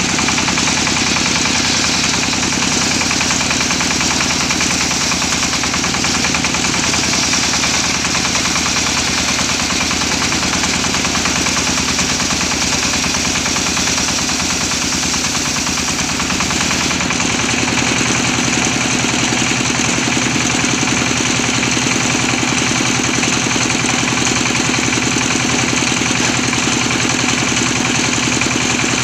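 Engine of a homemade circular-saw sawmill running steadily, driving the spinning saw blade as it cuts along a teak log. The sound changes a little about two-thirds of the way through.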